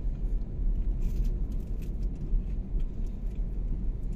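Steady low road and engine rumble of a Toyota car driving, heard from inside the cabin, with a few faint clicks.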